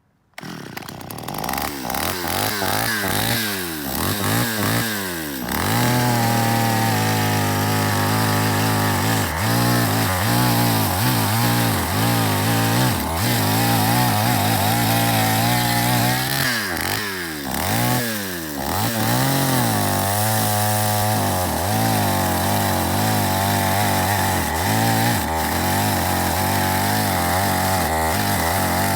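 Stihl two-stroke chainsaw cutting down a tree. It is revved up and down several times at first, then held at high revs while cutting, with a brief drop in revs partway through.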